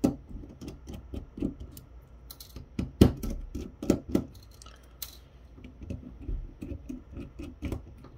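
A small screwdriver working screws out of a digital camera's lens assembly: irregular small clicks and ticks as the bit seats and the parts are handled, with a few louder knocks about three and four seconds in.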